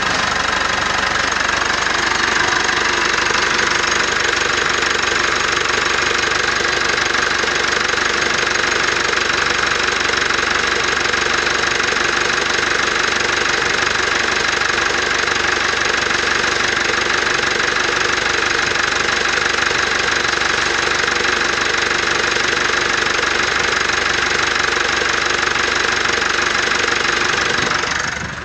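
Mitsubishi MQ Triton's 2.4-litre 4N15 turbo-diesel engine idling steadily with the usual diesel clatter. The sound cuts off suddenly near the end.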